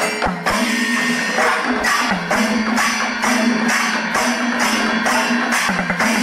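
Music with a quick, steady percussion beat, jingling strokes about three a second over a held low tone.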